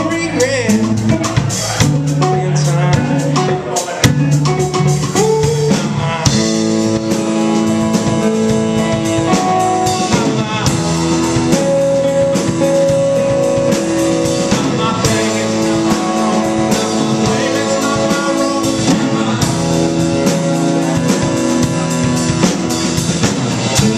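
A live band playing: electric guitar, electric bass and drum kit, with long held melody notes from about six seconds in.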